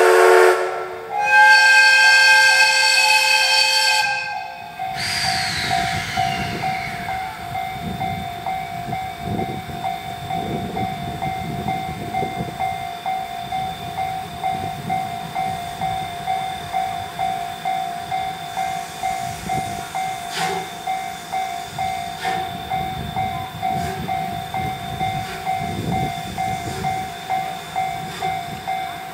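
Chichibu Railway's steam locomotive blows its steam whistle: a blast that cuts off about a second in, then a second blast of about three seconds. After that a Japanese level-crossing warning bell rings in a steady repeating beat, over the low rumble of the train.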